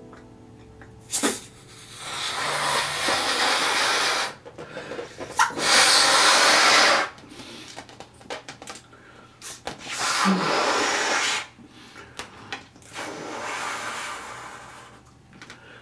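A red balloon being blown up by mouth: several long puffs of breath rushing into it, each a second or two, with short quieter breaks between while he draws breath.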